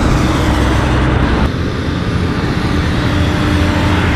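Diesel engines of heavy double-trailer haul trucks running past on a gravel road, a steady low rumble with road noise. The sound changes about a second and a half in as a second truck takes over.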